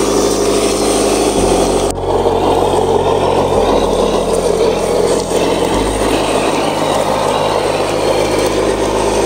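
Engine sound of a miniature RC truck running steadily, its low drone shifting in pitch in steps three times. There is a sharp click about two seconds in.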